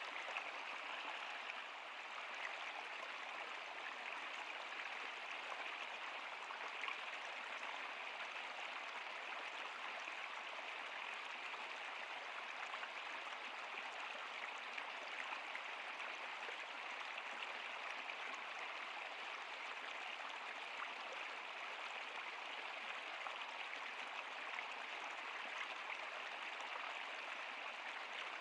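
Flowing water of a stream or small river rushing steadily, with small splashes and drips scattered through it.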